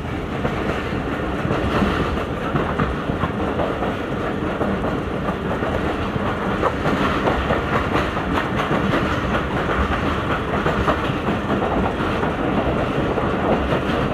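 Train running on the rails: a steady rumble with the clickety-clack of wheels over the track.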